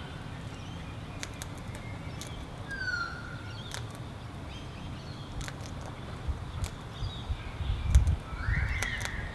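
Sulphur-crested cockatoo husking sunflower seeds at a seed dish: sharp, irregular clicks of beak on seed throughout. A few short, thin bird calls come in about three seconds in and again near the end, and a couple of low thumps, the loudest sounds, fall near the end.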